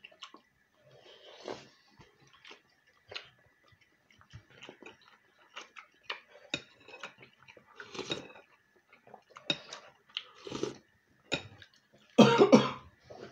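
Quiet eating sounds, chewing and a metal spoon against a bowl, in short scattered clicks and scrapes, then one loud cough about 12 seconds in.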